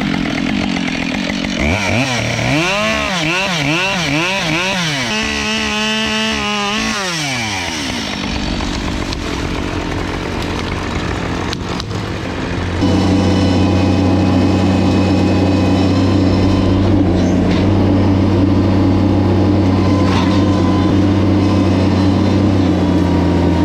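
Chainsaw revved up and down again and again for about the first seven seconds, dropping back near the end of that stretch. From about thirteen seconds in, a louder engine runs steadily underneath.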